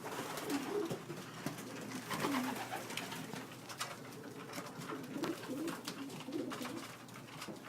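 Racing pigeons cooing, several low wavering coos overlapping one after another, with scattered light clicks.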